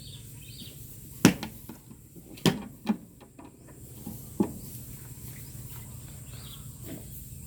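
The case of an ammonia reader being opened: four sharp clicks and knocks from its latch and cover, the loudest about a second in, over a low steady hum.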